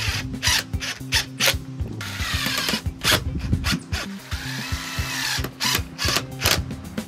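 Cordless drill-driver running in short bursts, driving screws back into an aluminum sliding-door frame, over background music.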